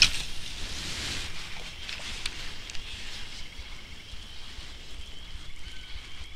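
A spinning-rod cast: a sharp swish at the start as the lure is thrown, then a brief hiss of line running off the spool. From about three seconds in, a faint steady high trill carries on.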